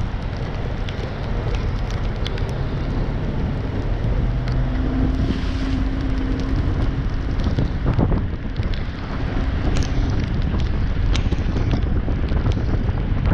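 Heavy logging machinery running: a steady low engine rumble with scattered knocks and clatter, and wind buffeting the microphone.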